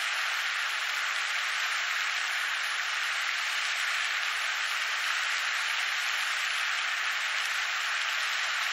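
A steady, even hiss that switches on and off abruptly, with no rhythm or distinct events in it.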